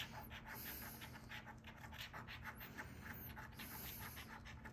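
A coin scraping the coating off a paper scratch-off lottery ticket in quick, short, faint strokes.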